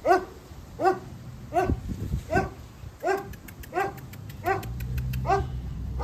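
A dog barking over and over at a steady pace, about eight short barks, one every three quarters of a second.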